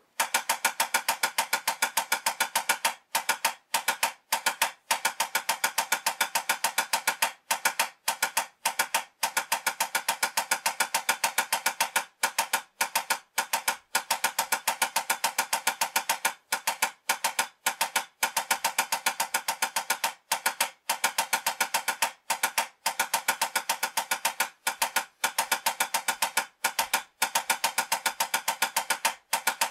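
Drumsticks playing a steady stream of rapid, even sixteenth-note strokes on a practice pad at medium tempo, with brief breaks every second or two between rhythm groups. This is a 16th-note timing exercise in a 4-2-1 format with a check pattern, played with traditional grip.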